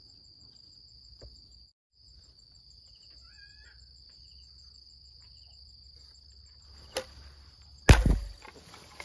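Insects trilling steadily in the background, with a brief chirp a few seconds in. Near the end comes a loud, sharp snap: a homemade rubber-band fish-shooting gun firing its dart. It is preceded by a smaller click about a second earlier.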